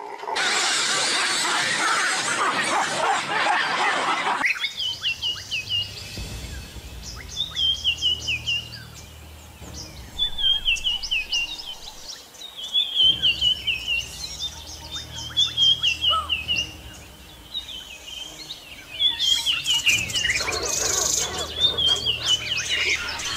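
A loud rushing noise for the first few seconds. It cuts off sharply and gives way to a bird calling repeatedly, short series of high falling chirps every second or two, over a low steady hum.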